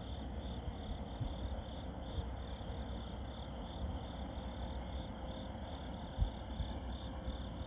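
Crickets chirping in a steady, evenly pulsing rhythm, over a low rumble and a soft bump about six seconds in.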